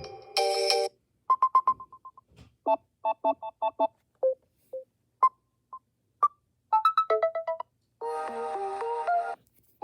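Samsung Galaxy A03s ringtones previewed one after another, each cut short. The tail of one tune gives way to several short runs of quick electronic beeping notes with silent gaps between them. About eight seconds in, a fuller tune with held notes starts and then stops suddenly.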